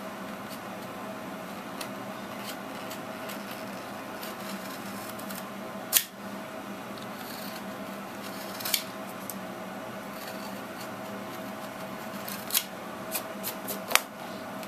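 A knife blade paring a thin sliver of wood along a deeply scored line, cut at an angle toward the waste side to leave a small trench: quiet scraping and slicing, with a few sharp clicks, the loudest about six seconds in. A faint steady hum lies underneath.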